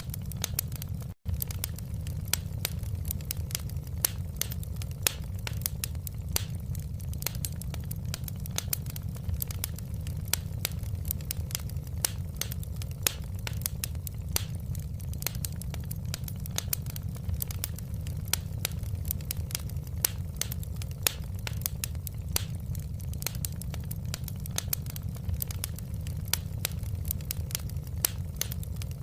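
Wood fire crackling, with sharp irregular pops several times a second over a steady low rumble. The sound drops out for a split second about a second in.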